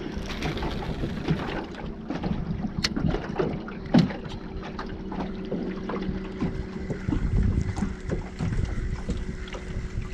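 Wind buffeting the microphone and water slapping against a boat's hull, with scattered small clicks and knocks from handling a spinning rod and reel, one sharp knock about four seconds in. A faint steady hum runs underneath.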